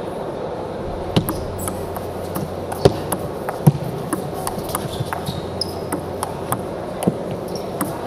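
Table tennis rally: the ball clicking sharply off the rackets and the table, roughly two hits a second, the loudest about three seconds in, over the low murmur of an arena crowd. A couple of short high squeaks come in the second half.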